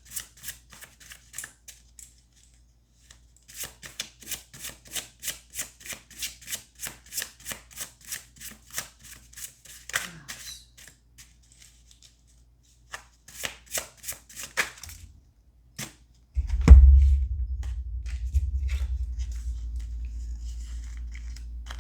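A deck of tarot cards being shuffled by hand: quick rhythmic card snaps at about four a second, in several runs with short pauses. About 16 seconds in, a loud knock, followed by a steady low hum.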